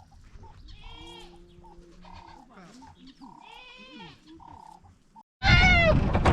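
Goats bleating: several faint bleats, then after an abrupt jump about five seconds in, a loud close bleat.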